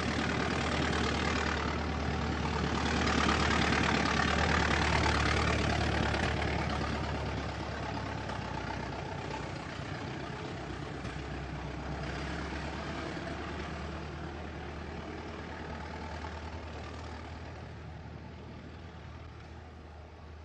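Old car engine running, growing louder for a few seconds about three seconds in, then gradually fading away.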